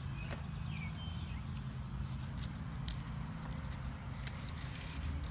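Twisted rope being handled and pulled around bamboo poles while tying a clove hitch: scattered short scratching sounds over a steady low rumble, with a brief bird chirp near the start.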